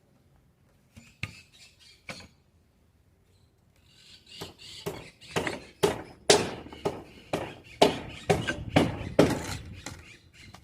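Hammer blows: a couple of separate knocks, then a steady run of strikes at about two to three a second.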